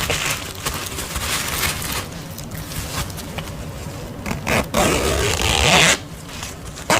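Soft rustling as a sleep mask is tucked into its carrying case, then the case's zipper being pulled, loudest about five seconds in.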